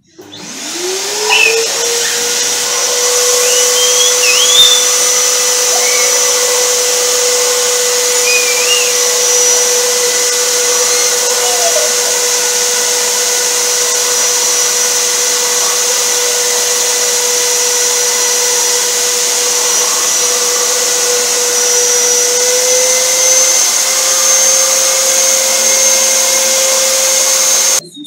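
Ramtons wet and dry vacuum cleaner starting up, its motor rising in pitch to a steady high whine within about a second and a half. It runs evenly while the hose nozzle is worked into the corners of a sofa's seat base, then stops suddenly near the end.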